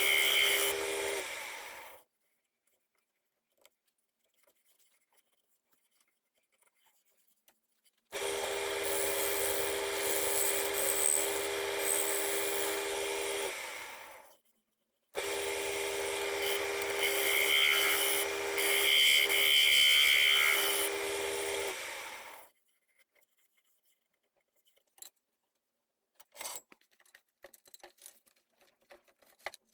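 Wood lathe running with a steady motor hum while the spinning wooden plate is worked, a rubbing, scraping sound of tool or abrasive on wood. The lathe sound stops and starts again twice, and a few light clicks and knocks follow near the end.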